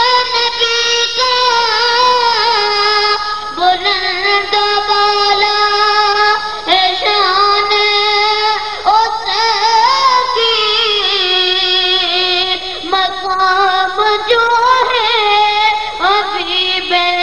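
A boy's high voice singing a naat solo into a microphone, long drawn-out notes bent and ornamented in slow phrases, with no instruments.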